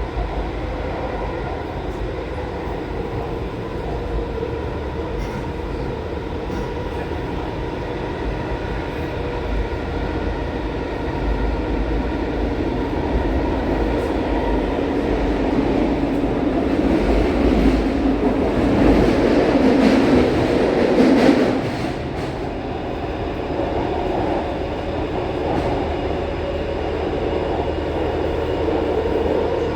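Taipei Metro C341 electric train running steadily, with a continuous rumble. A louder rush of noise swells up about 17 seconds in and drops off abruptly about 21 seconds in.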